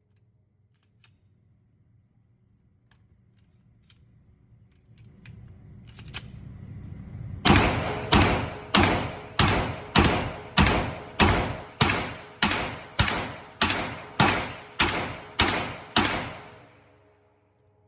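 A semi-automatic firearm fired in a steady string of about fifteen shots, roughly 0.6 seconds apart, each with a short ringing tail. The string starts about halfway through and is preceded by a few faint clicks.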